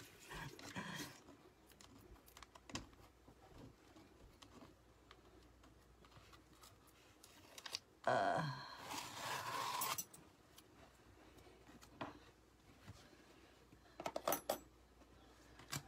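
Quiet scraping and handling noises as chalk paste is worked through a mesh silk-screen transfer onto a chalkboard. There is a louder hiss for about two seconds halfway through and a few quick clicks near the end.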